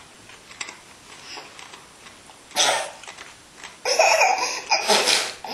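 Baby laughing in bursts: one short laugh about two and a half seconds in, then a longer run of laughter near the end.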